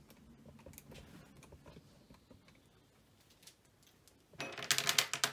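Faint small clicks and handling of craft materials on a work surface, then about a second of loud, rapid crackling near the end.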